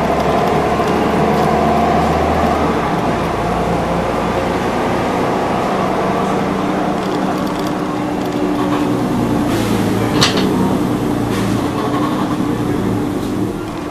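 Inside a city bus on the move: the engine running steadily under road noise, with one short sharp rattle about ten seconds in. The sound drops off near the end as the bus slows.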